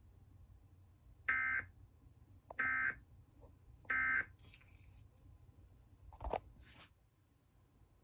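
Emergency Alert System end-of-message data bursts from a TV speaker: three short, raspy digital tone bursts about a second and a quarter apart, signalling the end of the alert test. A single sharp click follows about six seconds in.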